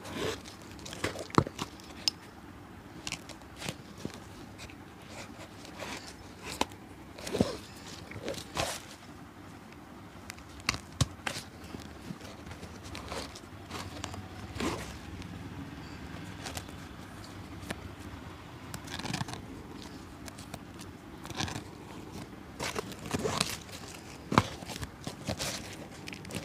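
A cobbler's hand work on a shoe: irregular clicks, taps and short scrapes of tools and hands against the shoe, with no steady rhythm.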